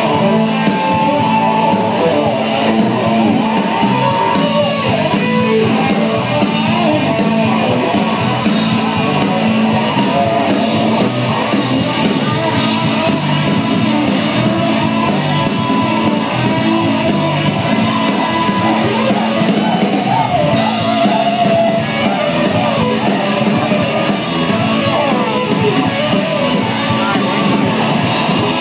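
Live rock band playing loudly, electric guitars to the fore, with a voice singing over the band, heard from within the crowd.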